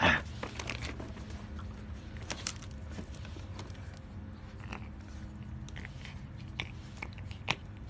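Chewing: irregular crunchy clicks over a low steady hum.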